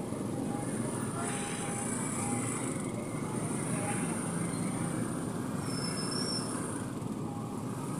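Busy road traffic: vehicle engines running and passing steadily, with voices in the background.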